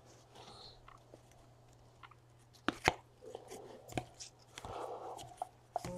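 Football trading cards being handled and flipped through by hand: a few soft clicks and short rustles as cards slide against each other, with a faint low steady hum underneath.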